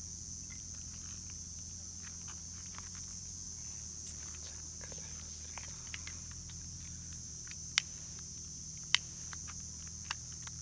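A steady high insect trill runs throughout, with scattered small clicks and ticks of handling twigs and kindling. Two sharp cracks stand out, about 8 and 9 seconds in.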